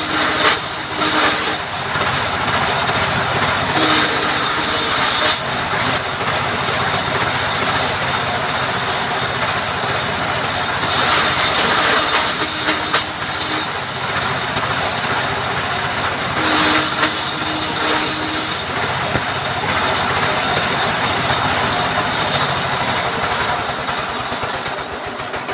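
Power saw cutting wood: a steady, loud machine noise with a sharper whine that swells four times for a second or two each as the blade bites into the timber.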